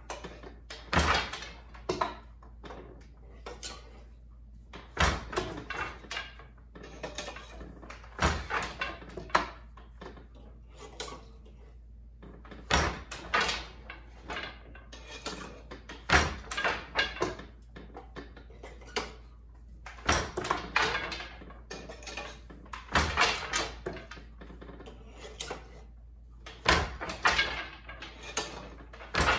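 Wooden Glimåkra Standard floor loom being woven on by hand: a hard wooden knock about every three to four seconds, nine in all, as the beater is pulled against the cloth. Between the knocks come lighter clatters from boat shuttles passing through the shed and the treadles and shafts changing.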